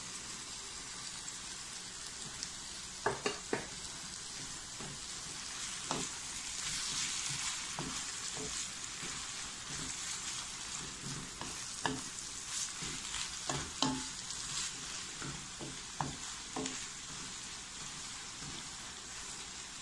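Grated carrot, onion and leek sizzling as they are stir-fried in a wok, with a wooden spoon knocking and scraping against the pan at irregular moments.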